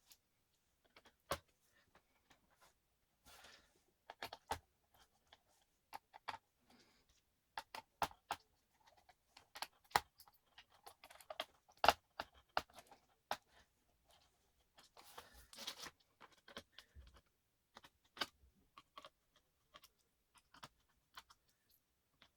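Irregular sharp clicks and taps of small plastic and metal laptop parts being handled, with a short rustle twice.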